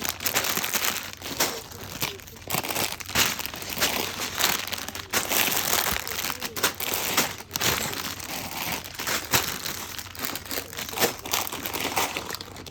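Continuous crinkling, rustling handling noise with many irregular sharp clicks and clatters.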